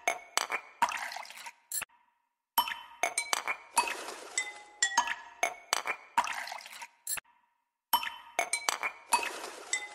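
Background music made of bright, glassy chiming and clinking strikes with ringing notes, repeating as a loop, with two brief full silences where it restarts.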